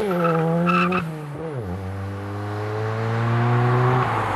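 Ford Sierra Sapphire Cosworth's turbocharged 2.0-litre four-cylinder engine accelerating away. About a second and a half in the note dips and drops to a lower pitch with a gear change, then climbs steadily under load until it drops away near the end.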